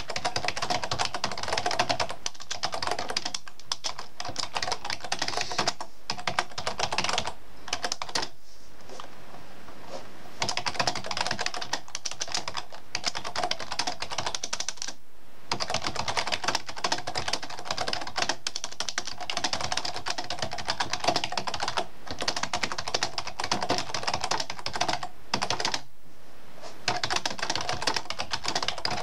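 Fast typing on a computer keyboard, a dense run of key clicks heard up close, broken by a few short pauses.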